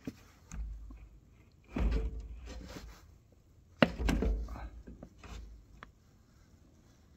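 Hands working at the plastic lid and built-in pour spout of a 5-gallon hydraulic fluid pail, trying to pull the spout out: irregular plastic scraping and knocking with a sharp click a little before the four-second mark.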